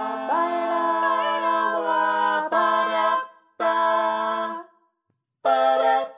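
A small a cappella vocal group sings held chords, then three short separate sung chords with brief silences between them.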